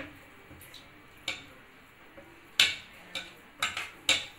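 Irregular light clicks and taps of hands working against a plate while rolling potato-mixture balls, about six in all, the loudest a little past halfway.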